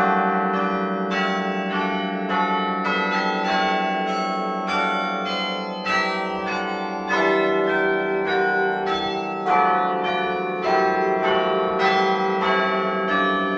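Church bells ringing up close inside the bell tower, loud. They are struck in a quick run of different notes, two or three strikes a second, each ringing on under the next, with a few heavier strikes toward the middle.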